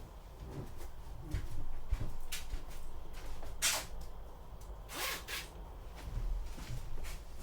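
A few brief knocks and rustles over a low rumble, the loudest about three and a half seconds in and two close together around five seconds in.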